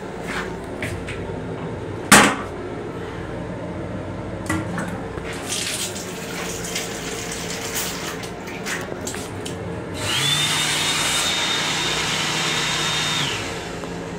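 Train lavatory faucet running into a stainless-grey sink over the steady rumble of the moving railcar. There is a sharp knock about two seconds in, scattered clicks, and near the end a steady whirring rush with a whine for about three seconds before it stops.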